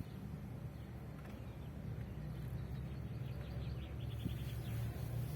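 Faint bird chirps over a steady low rumble of outdoor ambience, with a quick run of short chirps a little past halfway.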